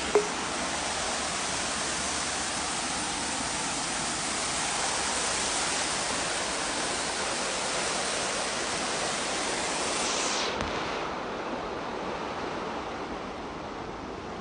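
Steady rush of flowing stream water. Its hiss thins out about ten seconds in.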